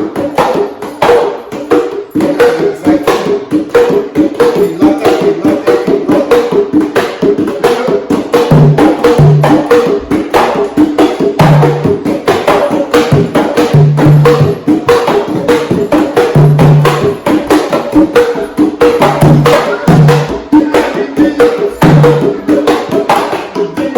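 Several hand drums played together in a fast, interlocking rhythm of sharp slaps and open tones. About eight seconds in, a deeper, lower-pitched drum joins with short repeated notes.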